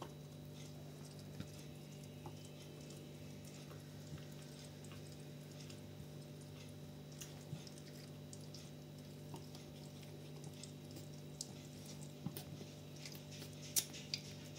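Faint scattered clicks and soft rustles from newborn Shiba Inu puppies and their mother stirring on fleece bedding, over a steady low hum; the sharpest click comes near the end.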